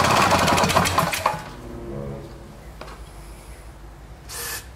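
A 2-stroke Tecumseh engine pull-started by its rope, cranking over fast for about a second and a half without catching, because its ignition timing is off. Near the end comes a short hiss of aerosol spray.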